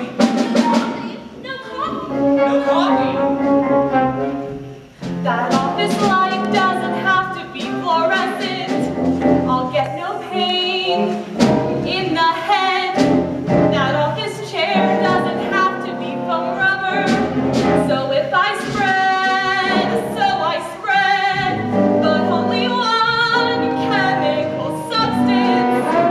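A stage musical's cast singing a show tune with instrumental accompaniment.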